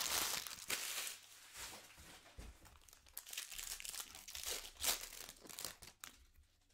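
Foil wrapper of a 2020 Bowman Draft jumbo card pack crinkling loudly in the hands as it is torn open and the cards pulled out. The crinkling dies away about six seconds in.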